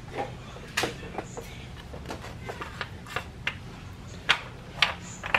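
Irregular sharp clicks and light knocks of hands working the oil filler cap off the valve cover of a Nissan SR20DET engine, over a low steady hum.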